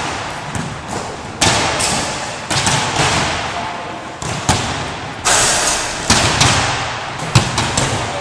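Several basketballs bouncing on a wooden gym floor: irregular hard thuds, sometimes a few close together, each followed by a long echo in the hall.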